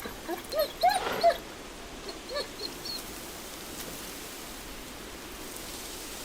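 Short high-pitched animal calls, several close together in the first second and a half and one more a second later, then a steady hiss.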